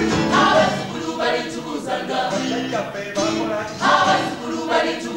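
A group of performers singing together as a choir, with loud rhythmic phrases from several voices at once.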